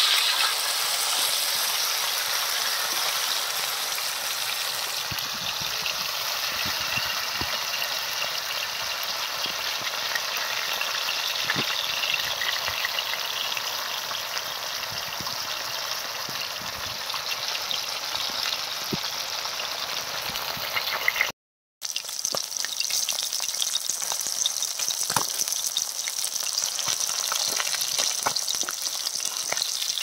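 Small parrot fish pieces shallow-frying in hot oil in a heavy black pan: a steady sizzle with scattered small pops and crackles. The sound cuts out for about half a second roughly two-thirds of the way through, then the sizzle resumes.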